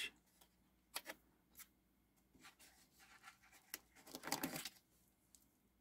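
Faint handling sounds: a few light clicks, then a little after four seconds in a short scraping rustle with small clicks as a watch on a stainless steel bracelet is lifted out of its cardboard box insert.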